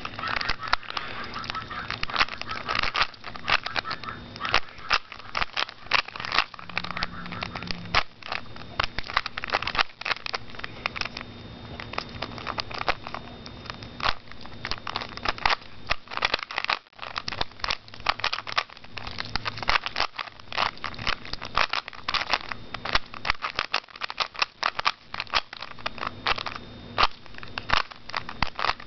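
Rubik's Cube being turned rapidly by hand during a timed solve: a dense, irregular run of plastic clicks and clacks as the layers snap round, with a faint steady hum underneath.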